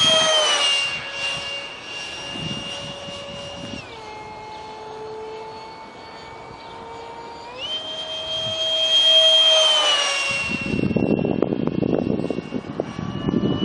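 Whine of a 70 mm electric ducted fan (Detrum EDF) on a small foam RC jet in flight. The pitch steps down about four seconds in and climbs back a few seconds later, growing loudest as it passes. Near the end a rough, low rushing noise covers it.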